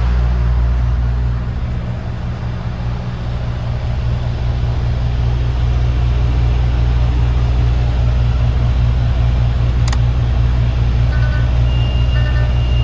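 DAF CF290 truck's Euro 6 diesel engine idling steadily. There is a single sharp click about ten seconds in. Near the end a repeating high electronic beep starts.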